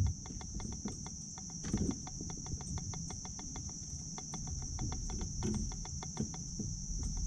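Steady high insect drone from the bankside trees, with a rapid, even ticking at about six ticks a second and a low rumble underneath.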